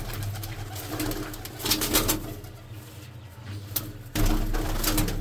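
Domestic pigeons cooing, with two short rustling bursts, about two seconds in and near the end.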